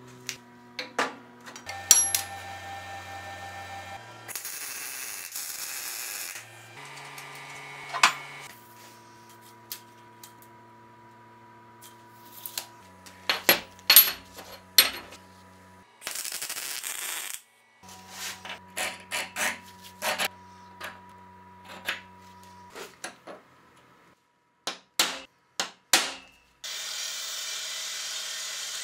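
Metalworking sounds: steel pieces clinking and knocking as they are set down on a steel table, two short runs of a power tool, and a drill press starting to run near the end.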